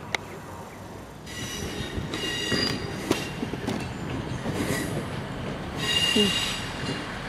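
A passenger train's wheels squealing on curved track as it runs slowly into the station platform. It comes in several high-pitched bouts of about a second each, over the rumble of the train.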